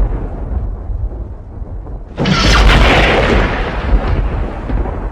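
Thunder: a deep rumble dies away, then about two seconds in a sudden sharp crack of thunder breaks and rolls off into low rumbling.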